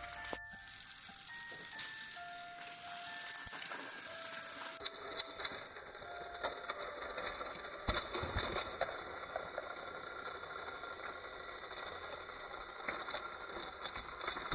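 A few single melody notes of background music trail off in the first seconds. From about five seconds in, a battery-powered toy train's motor and plastic gears whir steadily as it runs along plastic track.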